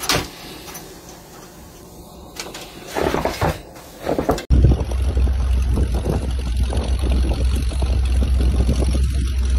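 Faint outdoor noise with a sharp click at the start and a few brief rustles. After a sudden cut about four and a half seconds in, an old snow vehicle's engine runs with a steady low rumble.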